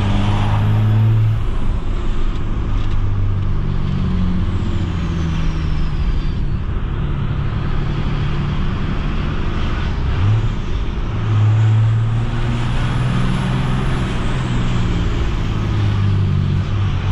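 12-valve 5.9 Cummins turbo diesel running under way, its low note stepping up and down as the revs change, with a rising sweep about ten seconds in. A faint high whistle rises and falls near the start and again later.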